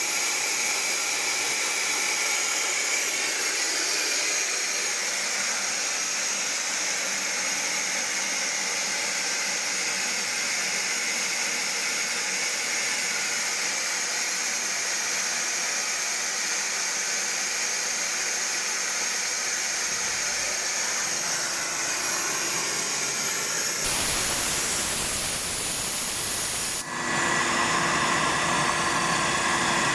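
Compressed air hissing steadily out of a screw compressor's air receiver as the pressure is let down. About 24 s in, the Alup COMBI GE 7.5 screw compressor starts up. About three seconds later it settles into a steady run with a hum, building pressure back toward 10 bar.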